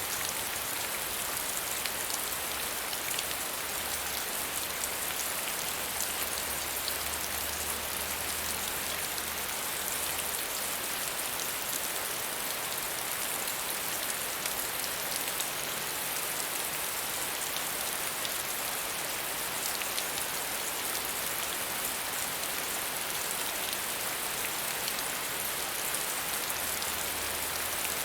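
Steady medium rain falling on surfaces: an even hiss with a fine patter of individual drops.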